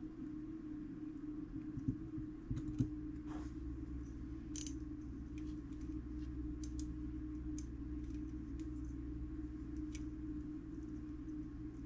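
Tweezers and small metal clock parts giving light, irregular clicks and taps, the sharpest few about two to three seconds in, over a steady low hum.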